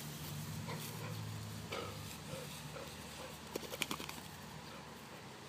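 Boxer dog rolling in long grass and getting to its feet, with a few short sounds from the dog. About three and a half seconds in, a quick run of sharp clicks comes as it shakes its head.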